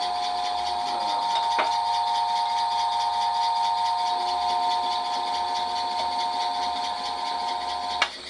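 South Bend 14-1/2-inch lathe running with its four-jaw chuck spinning: a steady mechanical whine of several fixed tones, with a click about a second and a half in. About eight seconds in it is switched off with a click and the whine stops abruptly.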